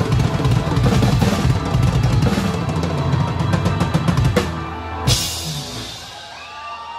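Live rock band finishing a song, heard close to the drum kit: dense, fast drumming with bass drum and cymbals for about four and a half seconds, then one final crash hit about five seconds in that rings out and fades.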